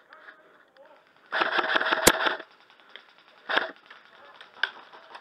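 Airsoft electric rifle firing on full auto: a burst of about a second starting just over a second in, with one sharp crack in the middle of it, then a short burst about three and a half seconds in.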